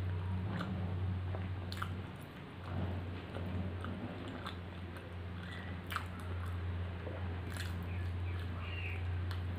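Close-miked chewing of butter roti soaked in mutton curry gravy, with scattered short wet mouth clicks, over a steady low hum.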